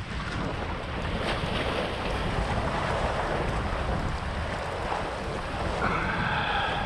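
Wind buffeting the microphone with a steady rumble, over sea waves washing against a breakwater.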